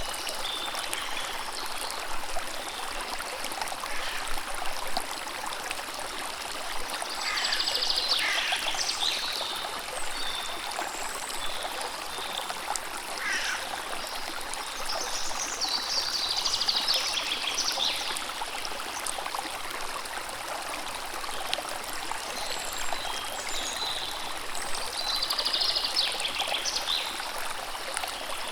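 A river or stream of running water, splashing and gurgling steadily. Birds sing short phrases of song above it four or so times.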